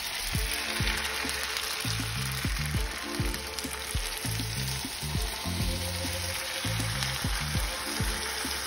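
Linguine and fried zucchini sizzling in a hot nonstick frying pan as they are tossed with a plastic pasta server, with a few light knocks of the server against the pan.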